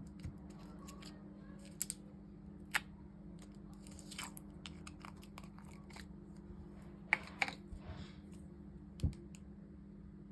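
Slime being handled, giving scattered crisp clicks and crackles, a few sharper pops among them, over a steady low hum.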